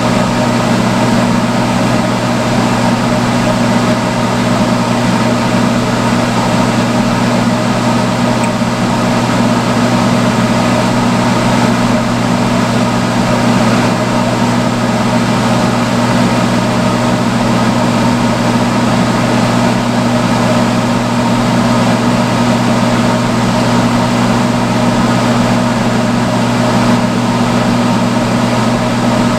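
Salon hood hair dryer running steadily: a constant motor hum under the rush of blown air.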